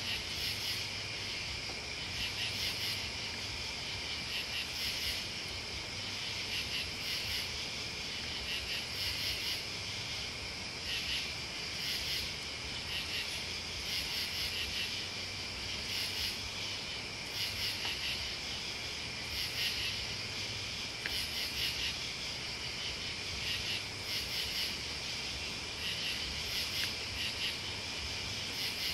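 Night chorus of crickets and other insects: a steady high trill with overlapping pulsing chirps, and a fainter, higher chirp repeating about once or twice a second.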